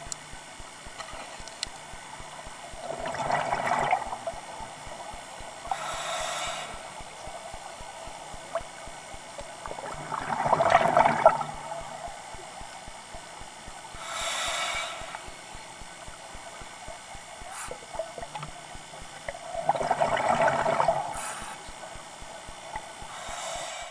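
A scuba diver breathing through a regulator underwater: a bubbling exhale alternates with a shorter, higher hissing inhale through the demand valve. There are three breaths about eight seconds apart, and the exhales are the loudest.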